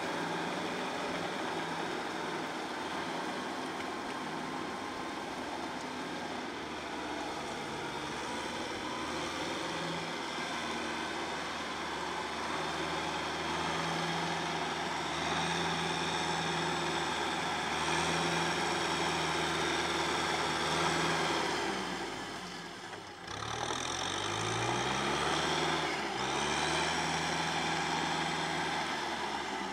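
Kubota M6040SU tractor's diesel engine running steadily under load in deep mud. About three-quarters of the way through, the engine note drops briefly, then climbs back up as it revs again and settles.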